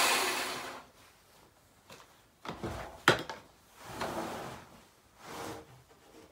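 A chainsaw on a rail mill fades out in the first second as the cut ends. Then a freshly sawn wooden board is dragged across the mill's steel bed in several short scraping slides, with one sharp knock about three seconds in.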